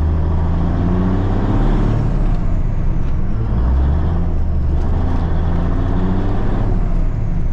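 Diesel engine of a 1983 Kenworth K100 cabover truck, heard from inside the cab while driving. The engine pitch climbs under acceleration and drops back several times as the truck is shifted up through the gears.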